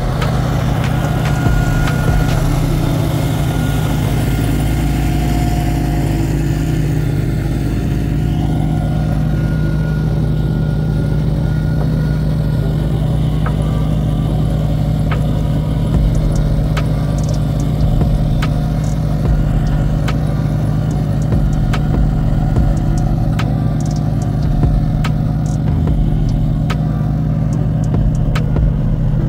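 A Wacker Neuson ride-on tandem roller's engine running steadily as the roller drives over and compacts loose crushed asphalt, with scattered sharp clicks over the drone.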